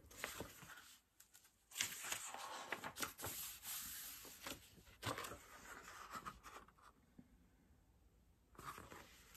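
Paper pages of a picture book rustling and turning as the book is flipped through and handled, with a few soft taps and knocks.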